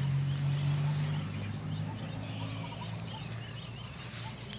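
Rural outdoor ambience: faint bird chirps over a steady low hum that fades out after the first second or two.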